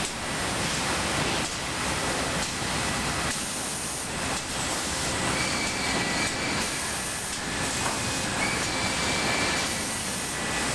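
Sawmill edger infeed running: the board transfer deck and overhead feed rolls moving boards, a steady mechanical rumble and clatter. A faint high whine comes in about halfway.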